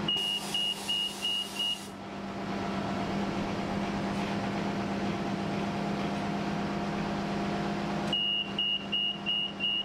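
Transit bus idling with a steady hum while its high warning beeper sounds about three times a second. The beeping runs for about two seconds, stops, and starts again near the end. This is the alert that sounds as the driver readies the rear wheelchair ramp.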